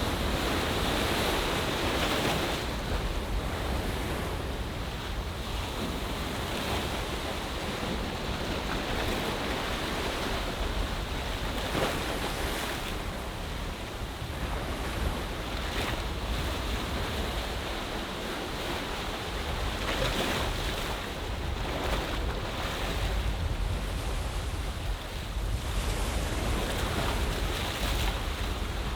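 Waves washing onto the shore of an ocean bay, a steady wash that swells and breaks every few seconds, with wind rumbling on the microphone.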